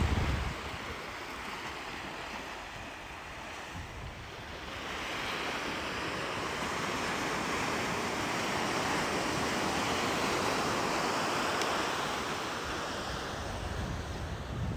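Ocean surf breaking and washing up a beach: a wave's rush swells from about five seconds in, holds, then eases off near the end. Wind buffets the microphone briefly at the start and again near the end.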